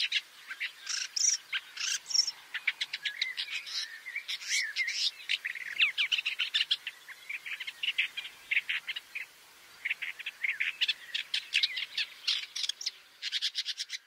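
Woodchat shrike singing: a chattering, varied run of quick, short, high notes, broken by a brief pause about two-thirds of the way through.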